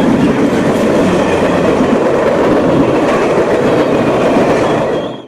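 Link light rail train running on the track, a steady rumble with wheels clicking over rail joints. It cuts off abruptly near the end.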